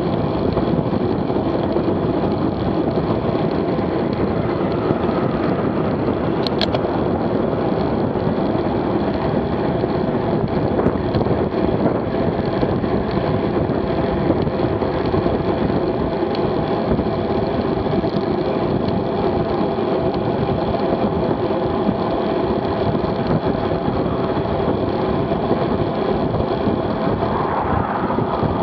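Steady rush of wind and tyre-on-road noise from a road bicycle ridden at about 25 mph, picked up by a camera mounted on the bike, with a constant hum running underneath.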